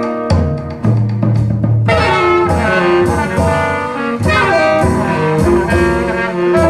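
Jazz-blues recording playing over a hi-fi system: held instrumental notes, with the full band coming in about two seconds in.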